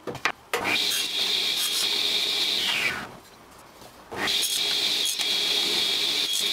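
Table saw running and cutting thin wooden strips to length on a crosscut sled: a steady high whine with the rasp of the blade in the wood, in two passes with a short break between them. A few sharp clicks come just before the first pass.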